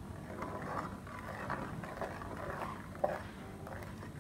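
A spoon stirring milk in a stainless steel pot, with irregular swishing and scraping against the pot and one sharper knock about three seconds in.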